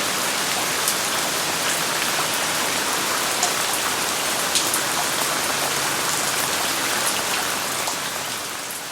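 Steady hiss of falling water, like rain, with faint scattered ticks, fading away near the end.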